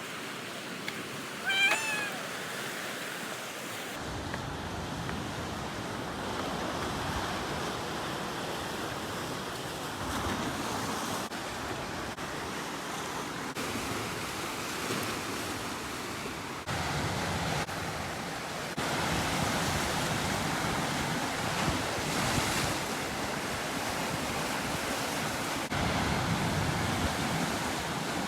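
Steady wash of sea surf and wind, broken by several abrupt cuts, with one short, high, pitched call about two seconds in.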